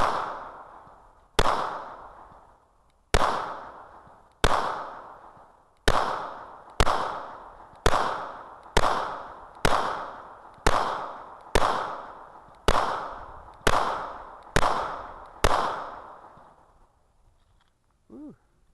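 Fifteen shots from a Beretta 92FS-pattern 9mm pistol, the Samurai's Edge, fired one at a time at an even pace of about one a second, each with a short ringing echo that dies away before the next shot.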